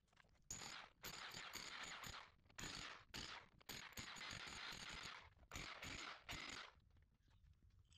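Power hammer chipping out concrete in a run of short bursts of rapid strikes, each a second or less, stopping a little before the end.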